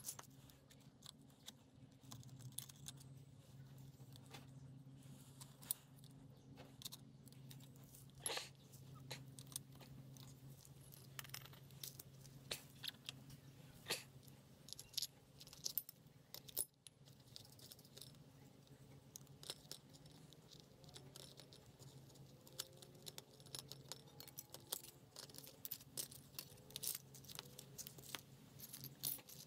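Faint, scattered metallic clicks and clinks as the loose clutch parts of a Honda XL250 engine (basket, hub, pressure plate and clutch plates) are handled and set down, over a steady low hum.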